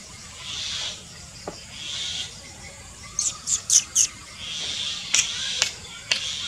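A rabbit chewing fresh leafy stems, with crisp crunches: four in quick succession about halfway through and a few more near the end.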